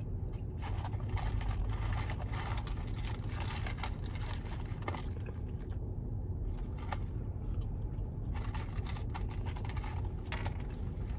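Steady low hum inside a car's cabin, with scattered small clicks and rustles of hands handling food over a paper tray and eating.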